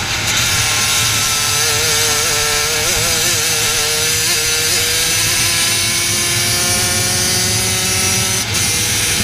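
Racing kart engine at speed, from an onboard camera: its note wavers, then climbs slowly as the kart accelerates down a straight and dips briefly near the end as the throttle comes off. Wind rushes over the microphone throughout.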